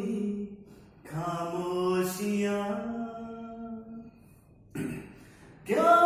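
A man singing a slow Hindi song unaccompanied, drawing out long held notes in phrases broken by short pauses; a new phrase starts near the end.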